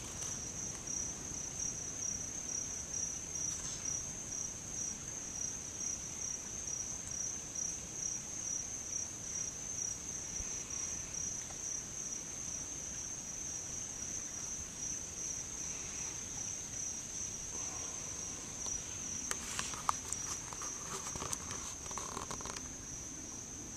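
Night insect chorus: a steady, high, pulsing trill. Near the end come a few seconds of rustling and clicks from the camera being handled.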